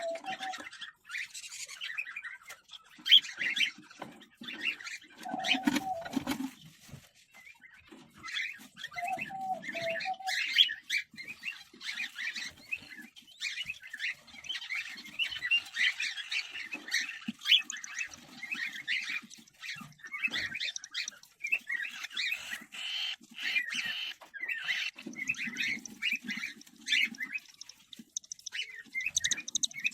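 Cockatiels in a nest box giving a rapid, almost unbroken chatter of short high chirps, typical of a chick's begging calls, with a few lower calls and knocks near the start.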